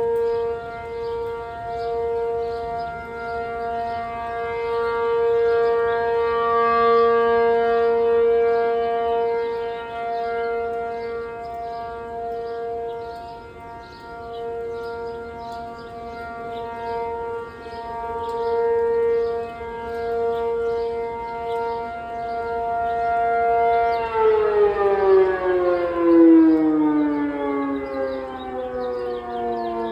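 P-50 outdoor warning siren sounding a steady Alert-mode tone, its volume swelling and fading. About 24 seconds in it begins to wind down, the pitch falling steadily.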